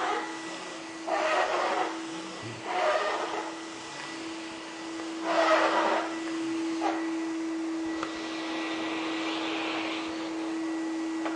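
Vacuum cleaner running with a steady motor hum and faint high whistle, swelling louder in brief bursts of rushing noise three times in the first half before settling into an even drone.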